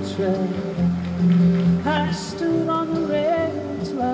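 A song with a sung vocal, played from an audio CD through the Macintosh Performa 6400's own speakers.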